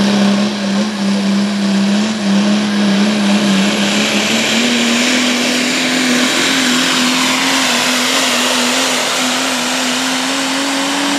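Modified 4x4 diesel pulling truck making a pull with the sled, its engine held at high revs over a loud rushing hiss. The engine's pitch steps up slightly about halfway and keeps creeping higher, then the sound drops off sharply at the very end.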